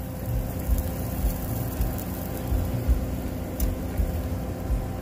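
Outdoor wind buffeting the microphone in uneven low gusts, over a faint steady hum, with one light click about three and a half seconds in.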